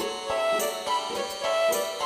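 Background music: a light, bouncy children's tune with a steady beat.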